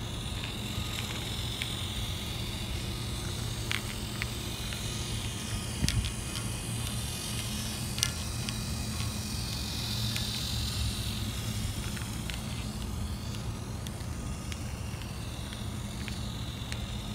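Motorized toy switch engine running around a plastic track loop: a steady motor-and-gear whir with a high whine that swells about ten seconds in, and scattered light clicks.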